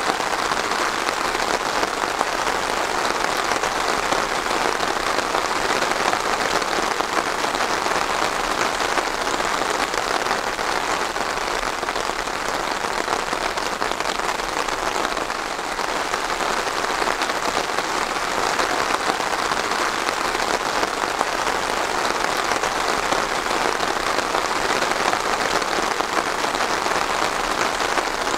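Steady rain falling and pattering on surfaces, an even hiss with no let-up, dipping slightly in loudness about halfway through.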